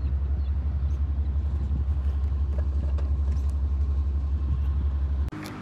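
Ferry's engines running with a steady, low, fast-pulsing rumble that carries through the deck; it cuts off abruptly about five seconds in, leaving a much quieter background.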